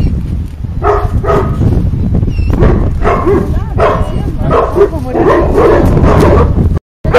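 Dogs barking and yelping in short, repeated calls over a steady low rumble of wind on the microphone.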